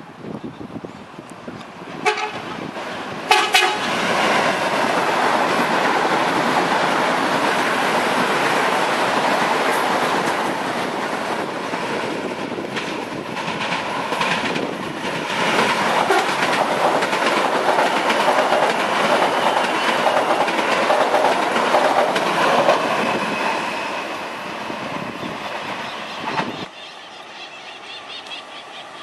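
CPTM electric multiple-unit commuter train passing close by. Short horn sounds come about two and three seconds in, followed by some twenty seconds of loud, steady wheel-on-rail rumble and clatter that cuts off suddenly near the end.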